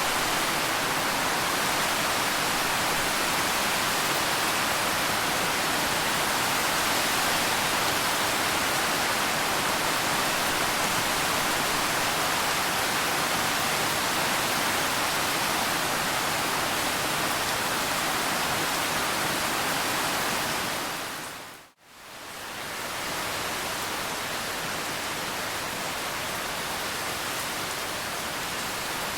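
Steady rain falling, an even dense hiss. About 22 s in it fades out to nothing in a moment and fades straight back in, a little quieter, as at a splice between two rain recordings.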